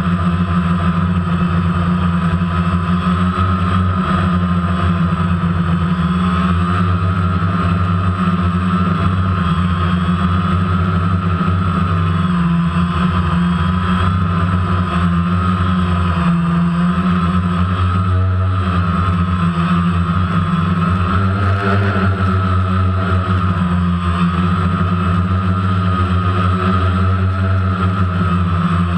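A DJI Phantom quadcopter's four electric motors and propellers whining steadily in flight, heard up close from the camera mounted on the drone, the pitch wavering slightly as it holds and adjusts its position.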